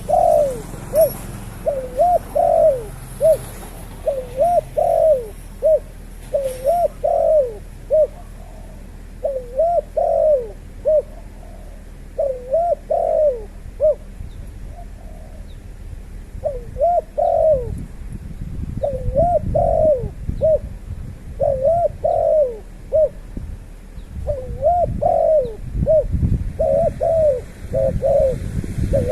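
A bird calling over and over: short notes that rise and fall in pitch, given in quick groups with brief pauses between them. Low rumbling noise comes and goes in the second half.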